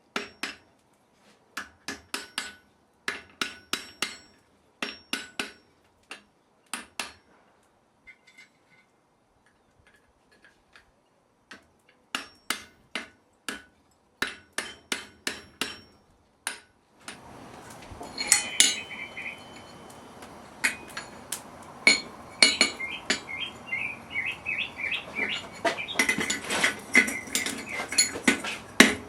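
Blacksmith's hammer striking iron on an anvil in quick runs of ringing blows, with short pauses between runs. About seventeen seconds in, a steady rushing noise starts under faster, denser hammering.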